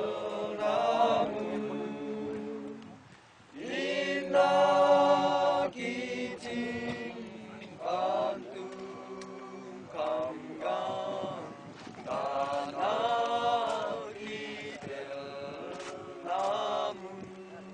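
A group of people singing a hymn together in long, slow phrases, with short breaks between lines.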